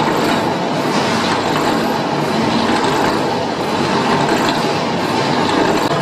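Carbonization furnace machinery running steadily: a dense mechanical rumble and rattle with a steady hum underneath.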